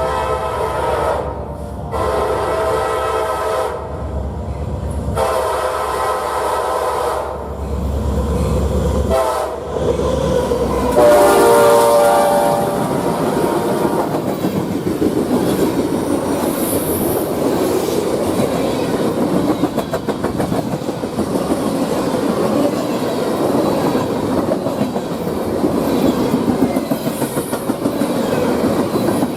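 Diesel freight locomotive's horn sounding a series of blasts, the last one the loudest, over a deep engine hum. The train then passes, a steady rumble of wheels with rapid clickety-clack over the rail joints.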